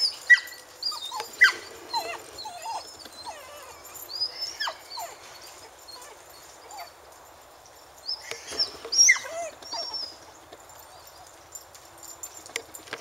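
Labrador puppy whining and yipping in short high cries, in three bouts: at the start, around four seconds in, and again around nine seconds in.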